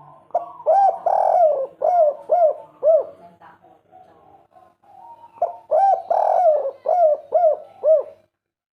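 Spotted dove (derkuku, tekukur) cooing its 'kuk 3' song: two phrases, each a run of about six short, arched coos.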